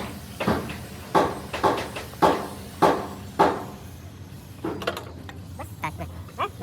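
Sharp knocks in a steady rhythm, about one every half second, giving way to lighter clicks and taps after about four seconds.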